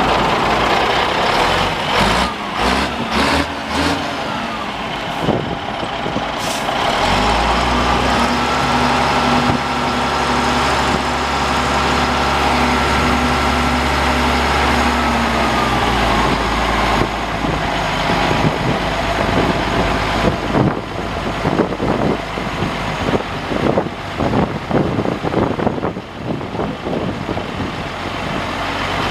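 Caterpillar 3306 six-cylinder diesel of a 1987 Cat D350CN articulated dump truck running. About a quarter of the way in it is revved up and held at a steady higher speed for roughly eight seconds, then drops back, with irregular knocks and rattles around it.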